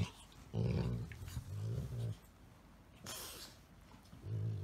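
A golden retriever and a Chihuahua–Shih Tzu mix play-fighting. Low, playful growls come in two stretches: one of about a second and a half near the start, another near the end. A short breathy noise falls between them.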